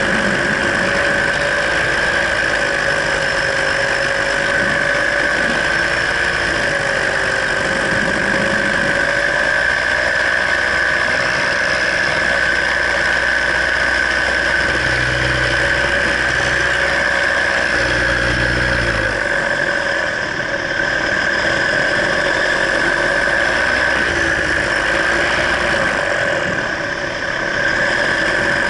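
Paramotor engine and propeller running steadily in flight, a loud, even drone that dips briefly twice in the second half.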